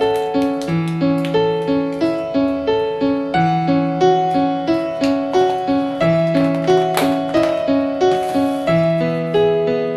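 Background instrumental music: a steady, repeating run of notes over a low note that changes every two to three seconds.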